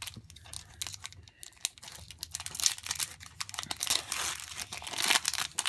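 Foil Pokémon booster pack wrapper crinkling as it is handled and opened, a dense crackle that grows louder from about two seconds in. Before that, a few light clicks of cards being handled.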